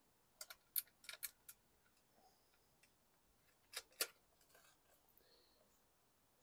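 Mostly near silence, with a few light clicks and taps as hands handle the plastic engine shroud of a lawn mower: a quick run of them in the first second and a half, then two more about four seconds in.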